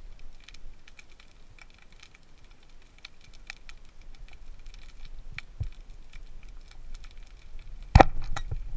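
Underwater sound picked up by a camera in its waterproof housing: a scattered crackle of sharp clicks, with one loud knock about eight seconds in.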